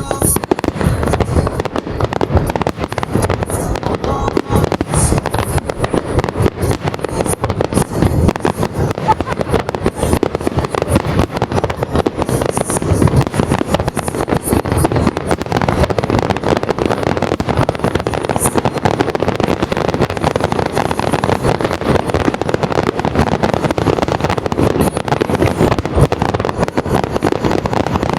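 Fireworks bursting and crackling in a dense, unbroken stream of sharp reports during a finale barrage.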